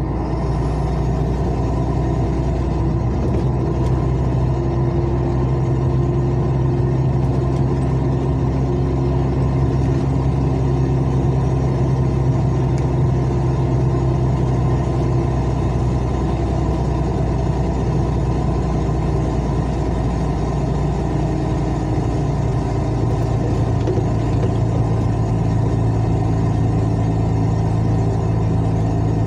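Truck's diesel engine running steadily with a loud, unmuffled exhaust drone: the flexible exhaust section (serpentina) has burst, so the exhaust runs effectively straight-piped. The pitch shifts slightly after about twenty seconds.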